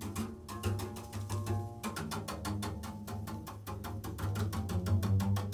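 Improvised double bass music: a low sustained bass tone, joined about two seconds in by a rapid, even run of percussive taps.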